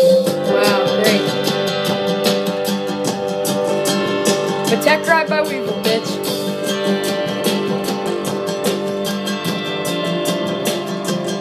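Music with plucked and strummed guitar over sustained notes, playing steadily throughout.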